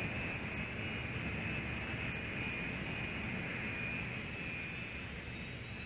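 Jet aircraft engines running steadily: an even rushing hiss with a thin high turbine whine over it.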